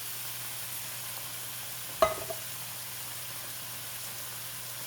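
Browned ground beef and tomatoes sizzling steadily in a hot skillet. About two seconds in comes one sharp, ringing metallic clink, followed by a smaller knock just after.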